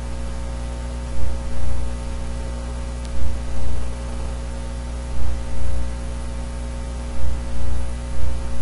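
Steady electrical hum and hiss, with a low throb that swells twice in quick succession about every two seconds.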